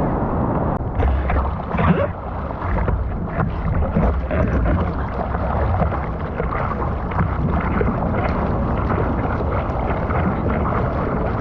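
Wind buffeting the microphone and ocean water rushing and splashing while surfing, a steady heavy rumbling noise, with a few sharper splashes a second or two in.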